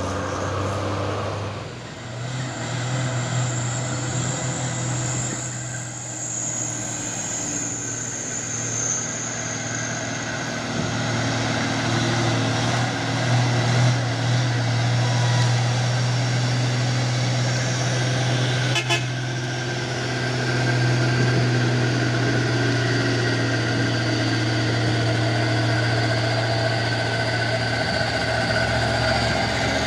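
Heavy truck engine running steadily, getting louder about eleven seconds in and again near twenty seconds, with a single sharp click partway through.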